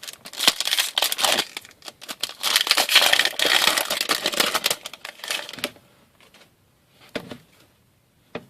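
An Upper Deck O-Pee-Chee Platinum hockey card pack's wrapper being torn open and crumpled: dense crinkling for about five and a half seconds, then stopping, leaving only a few faint clicks of cards being handled.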